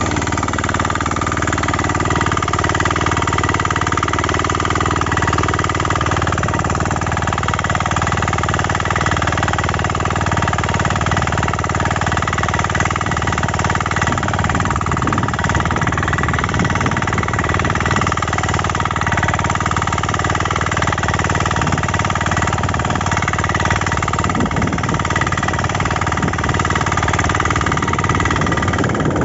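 A 6 HP power weeder engine running steadily under load as its rotary tines till the soil.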